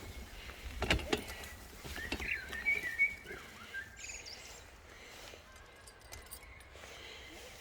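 Birds chirping in short calls, with a couple of sharp knocks about a second in.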